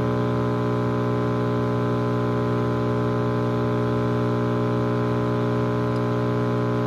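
A GE tube AM clock radio with its volume turned up gives a loud, steady hum from its speaker, with no station coming in clearly.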